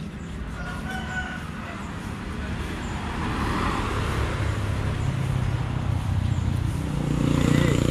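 A motor vehicle engine running close by, getting steadily louder, with a rooster crowing briefly about a second in.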